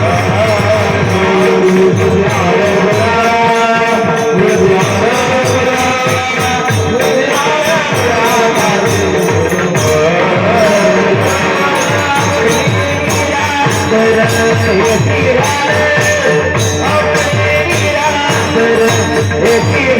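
Devotional bhajan music: a wavering sung or played melody over a fast, steady drum beat with jingling hand cymbals.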